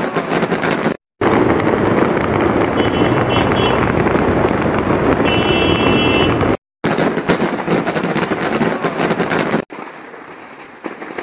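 Firecrackers and fireworks going off in a dense, rapid crackle of pops, the stock of a firecracker factory burning after its explosion. The sound drops out briefly twice and is quieter near the end.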